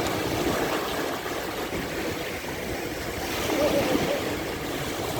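Sea waves washing onto a sandy beach: a continuous surf rush that swells up about three and a half seconds in.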